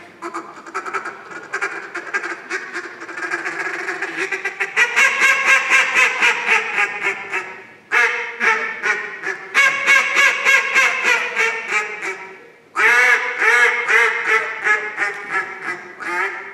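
A hand-held duck call blown to imitate a mallard hen. It gives three long runs of rapid, evenly repeated quacks, with short breaks about eight and about twelve and a half seconds in.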